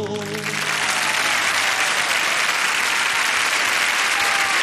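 Studio audience applauding at the end of a folk song, swelling within the first second to a steady level, with the band's last guitar chord dying away under it at the start.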